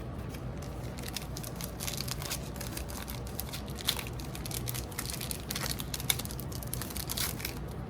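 Wrapper of a trading-card pack crinkling and tearing as it is opened by hand, a steady run of small crackles and rustles.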